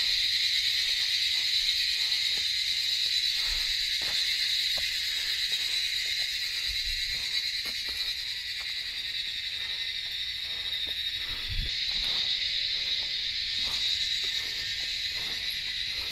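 A steady, shrill chorus of forest insects, a continuous high buzz, with faint scattered ticks and a few low thumps beneath it.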